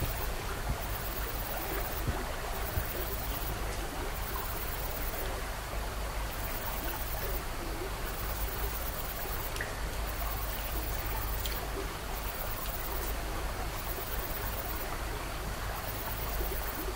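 Steady rushing background noise, like running water or hiss, with a low rumble underneath and a couple of faint ticks near the middle; no distinct event sounds.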